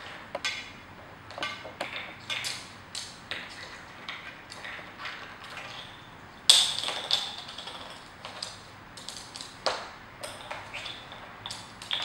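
Plastic bottle caps clicking and clattering on a laminate floor as a male eclectus parrot pushes and picks them up with its beak. There are many light taps, with one sharp, louder clack just past the middle.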